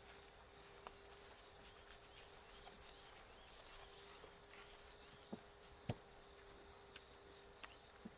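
Near silence: a faint steady hum and faint insect chirps, with a few soft taps, the loudest about six seconds in.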